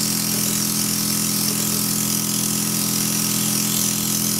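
Luminess Air airbrush compressor running with a steady hum, with the hiss of air and foundation spraying from the airbrush as its trigger is pulled back lightly.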